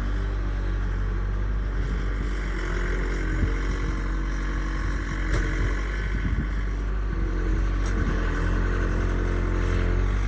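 A vehicle engine running steadily, with a few light knocks or clatters in the middle.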